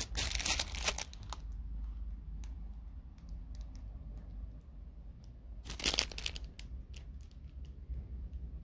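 Clear plastic packaging crinkling as it is handled. There is one bout in the first second and another about six seconds in, with scattered small crackles between.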